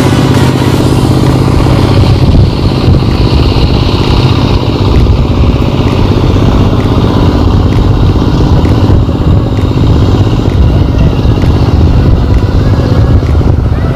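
A small engine running steadily and loudly.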